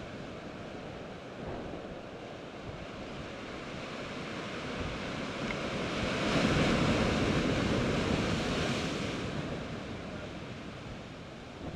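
Sea surf against a rocky shore, swelling as a wave breaks over the rocks about six seconds in, then easing off.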